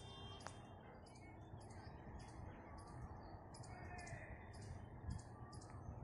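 Faint outdoor ambience: a high, thin chirp repeating steadily about twice a second, with a brief call about four seconds in, over a low background rumble.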